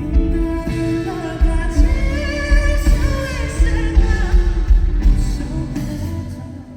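Live pop-rock song played loud in a concert hall: a singer over a band with a steady heavy bass beat. The music stops abruptly near the end.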